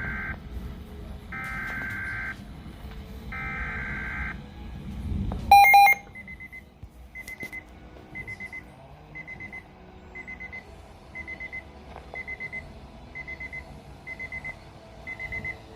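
Weather radio receiving an EAS activation: three buzzy one-second SAME digital header bursts, a loud short electronic tone about five and a half seconds in, then the radio's alert beeping about once a second.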